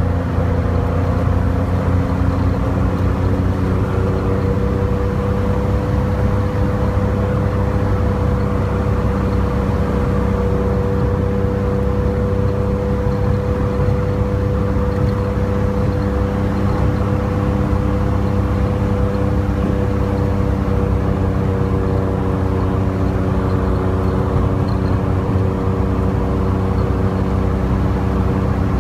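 Car engine running at a steady cruise with road and wind noise, heard from the driver's seat; the engine note climbs a little in the first few seconds, then holds steady.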